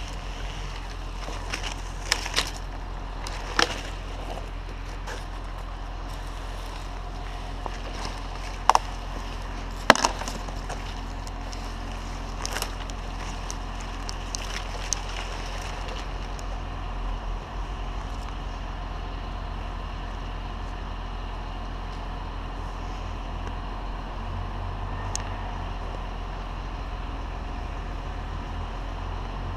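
Steady low drone of an idling engine, with a handful of sharp clacks and knocks in the first half, the loudest about ten seconds in.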